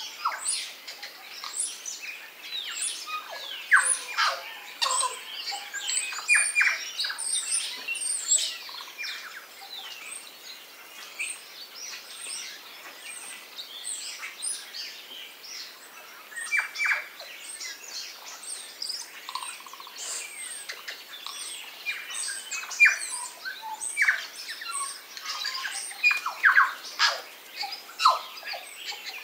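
A mixed chorus of many songbirds calling and singing at once, with dense overlapping chirps, whistles and short falling notes; tui, bellbirds, kākā, thrushes and starlings are among the birds feeding in the tree.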